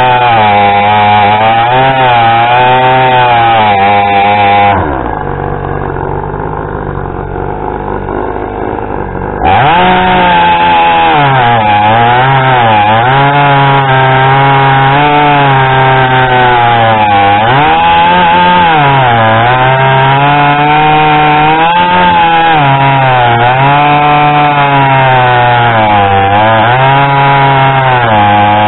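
Two-stroke chainsaw cutting firewood rounds at high revs, its pitch sagging and recovering as the chain loads up in the wood. About five seconds in it drops to idle for several seconds, then revs back up and carries on cutting.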